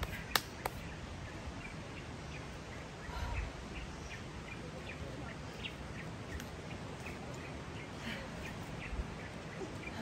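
Forest birds chirping, short scattered calls coming every second or so over a steady low background noise, with two sharp clicks about half a second in.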